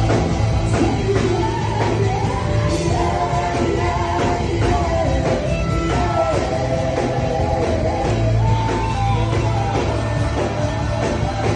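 Worship music: voices singing over instrumental backing with a strong, steady bass.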